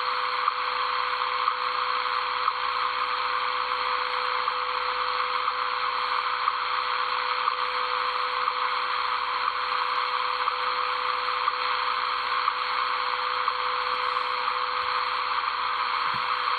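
Shortwave receiver audio from the 15 MHz time-signal broadcast: a steady hiss of static with a steady tone held underneath and faint ticks about once a second.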